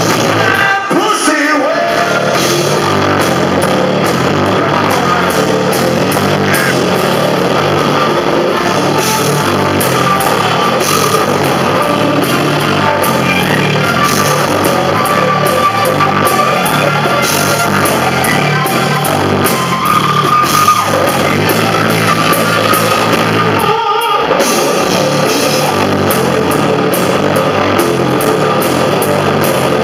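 Live rock band playing loud, with a singer over electric guitar and drums.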